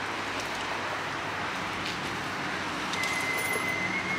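Steady hum of vehicle and traffic noise with a few faint clicks. A thin, steady high-pitched tone starts about three seconds in.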